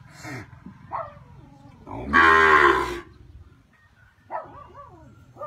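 A young cow moos once: a loud, low call about two seconds in, lasting about a second.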